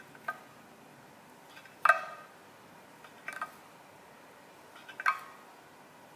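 Kitchen knife chopping down through a round of lupin-and-tofu fry dough and striking a marble board: four sharp, ringing knocks about one and a half seconds apart, the second the loudest.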